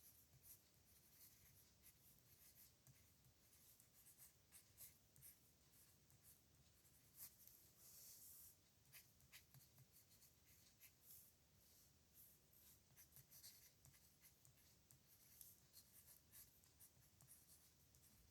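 Pen tip scratching across paper in a run of short, irregular strokes as handwriting is written; faint throughout.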